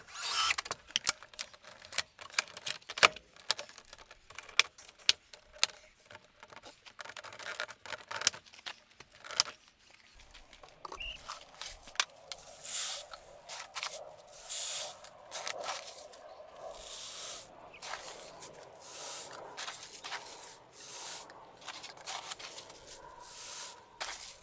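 Sharp clicks and knocks of PVC pipe fittings being handled and pushed together, then, from about ten seconds in, repeated rushing swells of dry grain feed being scooped from a bucket and poured.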